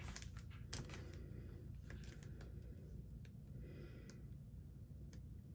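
Faint rustling and light ticks of scrapbook paper sheets and plastic packaging being handled, with a brief soft swish about four seconds in.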